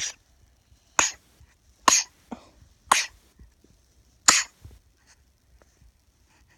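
Baby coughing: five short, sharp coughs spaced about a second apart.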